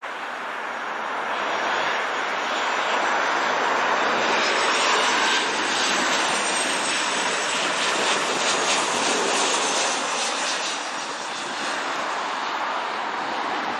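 Boeing 737 jet airliner passing low on landing approach: a steady rush of jet engine noise that builds to its loudest about halfway through, with a faint falling whine, then eases slightly toward the end.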